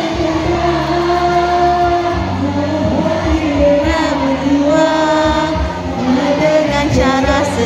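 Music with singing: a song with long held vocal notes over a steady bass accompaniment.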